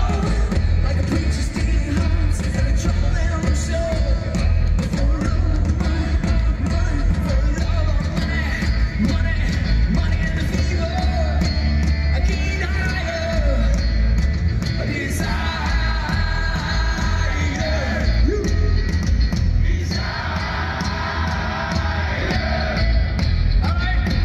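A live rock band playing with a lead singer: loud, with a heavy steady bass and regular drum hits, and the singing running through.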